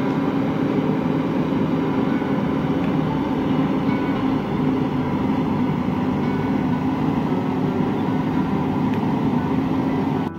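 JCB backhoe loader's diesel engine running steadily, a constant drone that holds one pitch.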